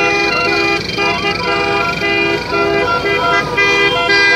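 Several vehicle horns honking together in quick repeated toots, in celebration; a tone that slides up and then slowly falls runs over them for a few seconds.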